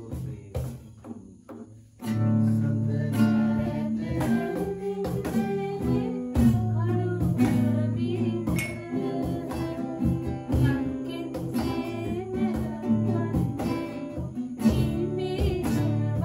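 Acoustic guitar playing: a few quiet plucked notes, then fuller, louder strummed chords from about two seconds in, with a voice singing along.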